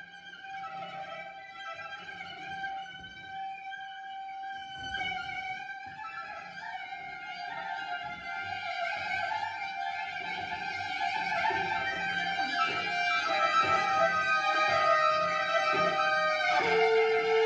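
Viola and cello improvising together with bowed, sustained notes, growing steadily louder and busier over the stretch.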